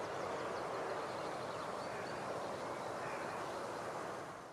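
Outdoor countryside ambience: a steady rushing background with a few faint, high bird chirps in the first second, fading out right at the end.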